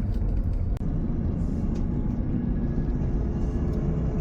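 Heavy road machinery stripping old asphalt: a diesel engine running steadily, the sound weighted low, with a brief break about a second in.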